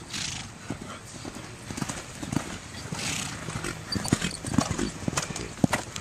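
Horse's hooves clopping, irregular hoofbeats several a second, getting louder in the second half. Two short hisses, at the start and about three seconds in.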